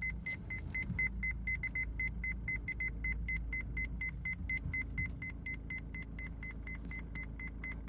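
Aftermarket reverse parking sensor's buzzer beeping rapidly, several short high beeps a second, spaced a little wider later on. The beep rate signals an obstacle behind the car about 0.6 to 0.7 m away. The car's engine idles with a steady low hum underneath.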